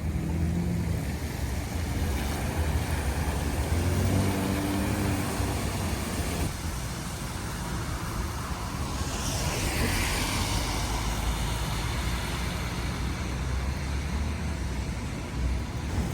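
City road traffic on wet streets: a steady low engine rumble, with a vehicle's tyres hissing past about ten seconds in.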